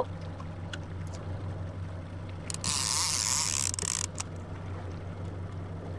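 Small fishing boat's motor running steadily at trolling speed, a low hum. About two and a half seconds in, a loud hiss lasts about a second and a half, with a few faint clicks around it.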